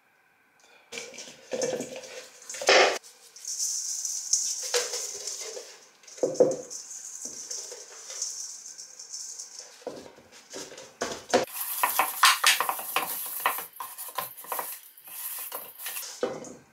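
A whole peeled vegetable knocking and scraping in a stainless steel mixing bowl as it is coated with oil and a red spice and rubbed by hand, with irregular clinks and clatter against the metal. The rubbing grows busier and more scratchy in the second half.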